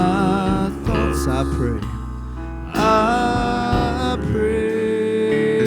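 Hymn singing with acoustic guitar and keyboard accompaniment, as a church worship song. The singers hold long notes with vibrato.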